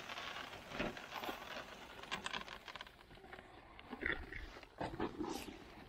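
Shelled corn pouring from a feed sack into a plastic barrel deer feeder trails off, followed by scattered rustles and crinkles of the emptied sack being shaken and handled.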